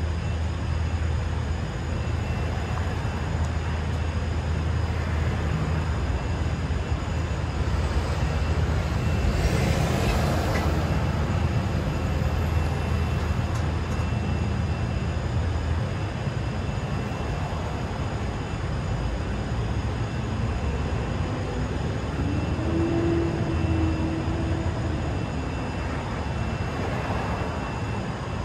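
City street traffic: a steady low rumble of vehicles, with one vehicle passing louder about a third of the way through and a brief steady hum from another later on.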